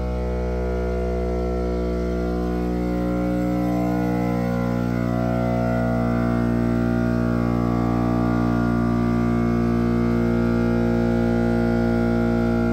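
Background music: a sustained droning chord held steady, growing slightly louder a few seconds in.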